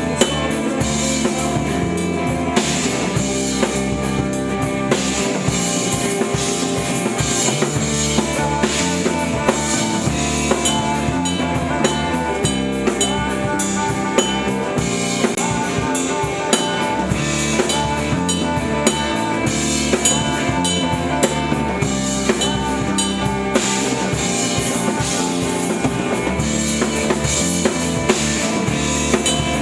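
Music driven by a drum kit: kick drum, snare and rimshots keeping a steady beat, with pitched instruments playing underneath.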